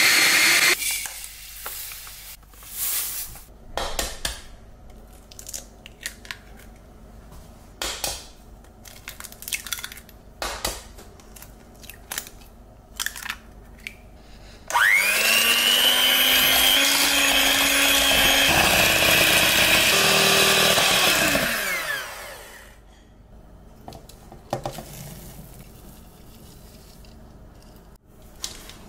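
A small electric food chopper runs briefly, then stops. Scattered clicks and taps follow as eggs are cracked into a bowl. About fifteen seconds in, an electric mixer spins up with a rising whine, runs steadily for about seven seconds whipping the eggs, and winds down.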